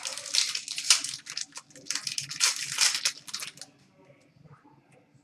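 Crinkling and rustling of trading-card packaging as cards are unwrapped and handled, dense for about three and a half seconds, then a few light clicks.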